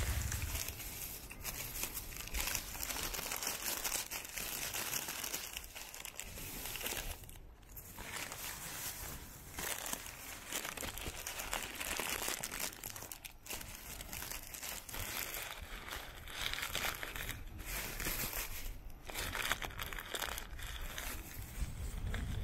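Continuous crackling, rustling noise from a moving bicycle ride, with a few brief dips in level.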